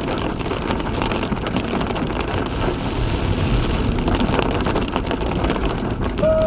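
Rain pattering on a Hyundai Venue's roof and windscreen while it drives on a wet road, heard from inside the cabin: a dense patter of drop ticks over a steady low rumble of tyres and engine.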